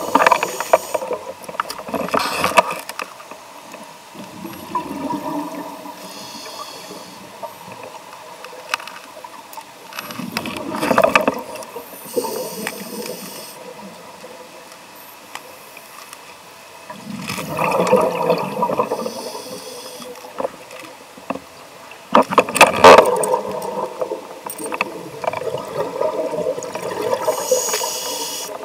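Scuba diver breathing through a regulator underwater: several loud bursts of exhaled bubbles a few seconds apart, with a quieter hiss between them.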